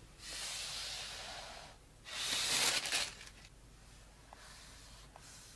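Two rustling swishes of packaging being handled with gloved hands, the second shorter and louder, followed by a couple of faint ticks.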